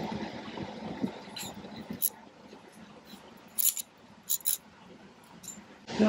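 A few short metallic clinks and clicks of a hand tool on the nut at the starter's battery cable terminal, spaced a second or so apart.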